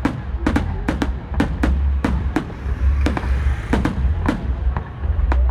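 New Year's Eve fireworks going off: an irregular string of sharp bangs, about two a second, over a steady low rumble.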